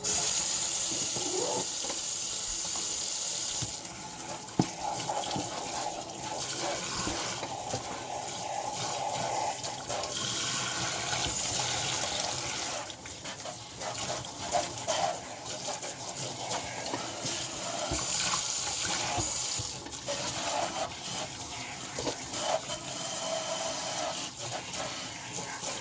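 Tap water running into a sink and splashing over a Shark vacuum's dust filter as it is rinsed. The stream comes on suddenly at the start, and the splashing shifts now and then.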